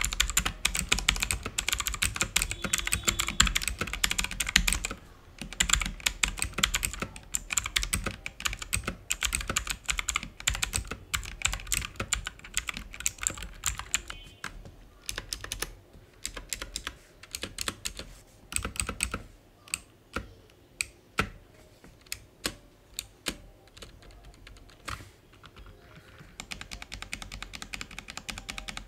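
Typing on a Bajeal mechanical keyboard with clicky Chinese blue switches: fast, dense key clicks for the first dozen seconds or so, then slower, separate keypresses with short gaps.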